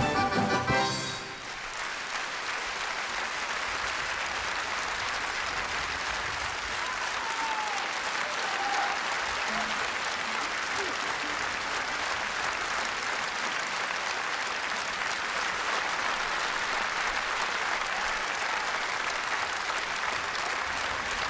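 Music stops about a second in, followed by steady applause from a large concert-hall audience.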